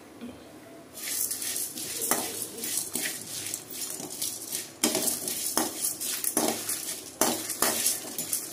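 A metal spatula scraping and stirring dry whole spices (coriander seeds, dried chillies, bay leaves) around an aluminium kadai, with metal-on-metal scrapes and rattling seeds, as the spices are dry-roasted. The stirring starts about a second in and goes on in repeated strokes.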